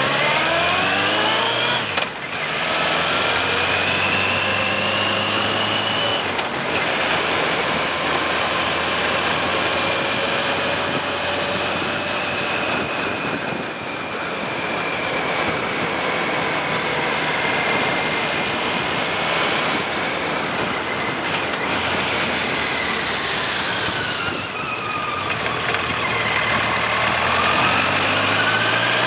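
Suzuki GSX1400's 1402 cc inline-four engine pulling uphill: revs rise, break off briefly at a gear change about two seconds in and rise again. The engine then holds a steady pitch, dips and climbs again near the end, under heavy wind noise.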